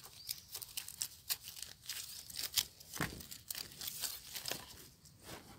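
Rustling and crackling of dry leaf litter and soil as a knife digs around a wild mushroom on the forest floor, with many short sharp crackles and a louder scrape about three seconds in.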